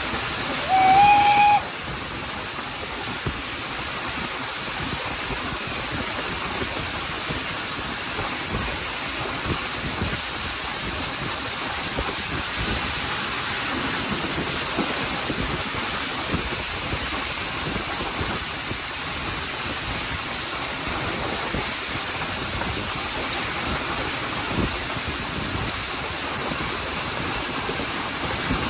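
Hunslet Austerity 0-6-0 saddle tank's steam whistle gives one short blast, about a second long, just after the start, sounded at a whistle board. After it comes a steady rush of steam, running gear and wind from the moving train.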